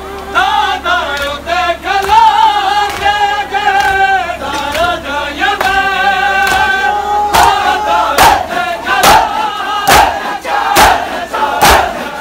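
Men's voices singing a noha, a Muharram lament. About seven seconds in, a crowd of men starts beating their chests in unison as matam, a heavy slap a little more often than once a second under the chanting.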